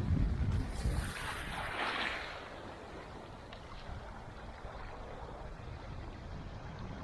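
Wind buffeting the microphone with a heavy low rumble for about the first second. Around two seconds in comes a brief rushing wash of surf, then a steady low rush of wind and water.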